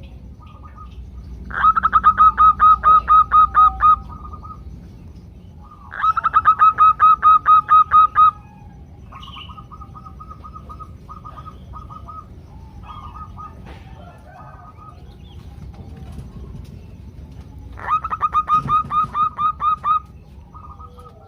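Female zebra doves calling: rapid runs of short, even notes, about five or six a second. Three loud runs of two to three seconds each, with softer, shorter runs between them.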